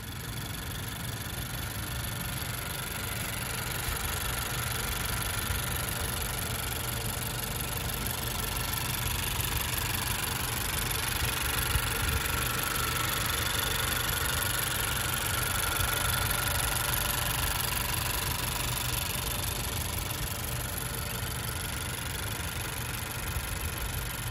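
Honda Civic Turbo's 1.5-litre turbocharged four-cylinder (L15B7) engine idling steadily with the bonnet open.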